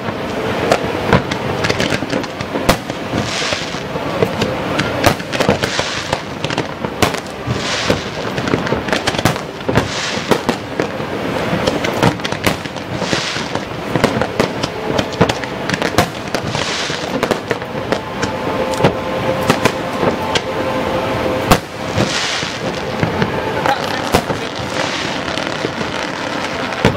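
Fireworks display: shell bursts bang in quick succession, with recurring swells of crackle and hiss between them. One bang about three-quarters of the way through is the loudest.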